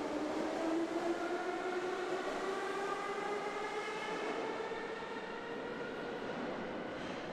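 Kyiv metro train's electric traction motors whining as the train picks up speed. Several even tones rise steadily in pitch over the rumble of the moving carriage.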